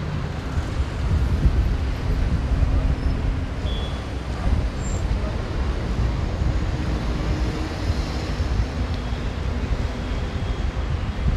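Steady road traffic from cars passing on a busy avenue, with a low rumble of wind on the microphone.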